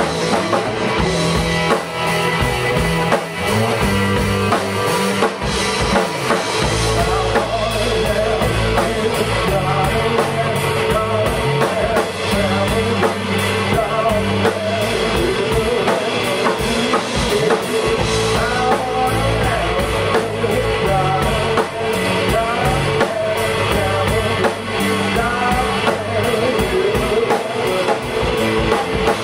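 A rock band playing live: hollow-body electric guitar, electric bass and drum kit together, at a steady loud level.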